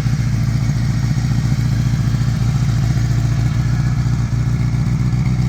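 1981 Honda CB650's four-cylinder engine running steadily at an even speed, sounding really good with its flooding number two carburettor cured.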